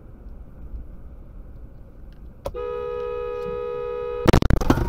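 Road noise inside a moving car, then a car horn sounds steadily for nearly two seconds, cut off near the end by a loud burst of banging and crunching: a collision.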